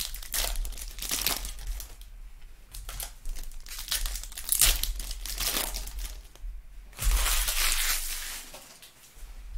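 Foil trading-card pack wrappers crinkling and being torn as cards are handled, in several rustling bursts; the loudest and longest comes about seven seconds in and lasts about a second.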